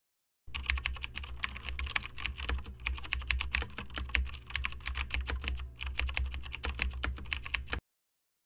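Keyboard typing: rapid, irregular keystroke clicks over a low steady hum. They begin about half a second in and stop abruptly near the end.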